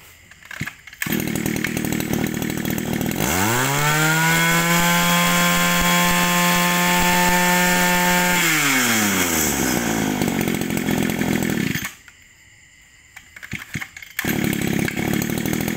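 Echo 23 cc two-stroke brush cutter engine starting and idling, then revved up to high speed for about five seconds and let back down to idle. It cuts out near the end and is running again a couple of seconds later.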